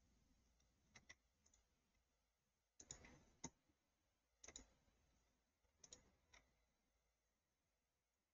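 Faint computer mouse clicks, a handful of short clicks, several in quick pairs, spread over a few seconds against near silence.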